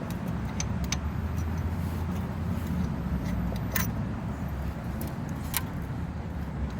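A few light metallic clinks of brake caliper hardware being handled, over a steady low motor-like hum.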